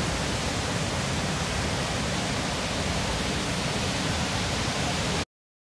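Steady rushing of Niagara's Horseshoe Falls, cutting off suddenly near the end.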